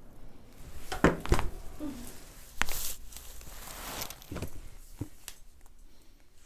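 A handful of short sharp thumps and clicks at uneven intervals from chiropractic adjustments, the loudest pair about a second in and another sharp one near the middle.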